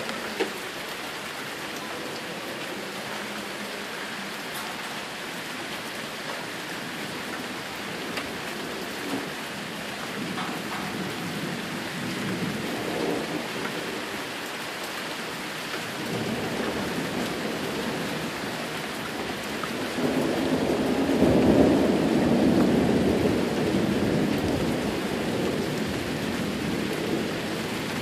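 Steady rain falling through a thunderstorm, with thunder rumbling in. The rumble builds from about halfway and is loudest about two-thirds of the way in, then slowly fades.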